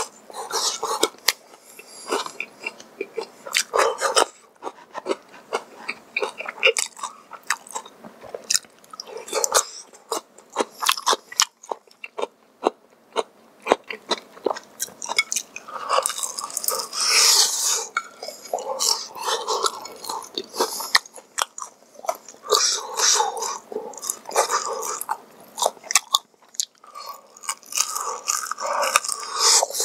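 A person chewing and biting food, with irregular crisp crunches and crackles throughout, busier in the second half.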